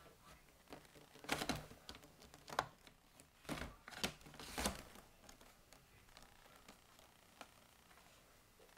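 Light plastic clicks and knocks from parts of a Dyson DC14 upright vacuum's base being handled, its duct piece and latch pressed and moved, with the vacuum switched off. The clicks bunch together between about one and five seconds in, then only a few faint ticks follow.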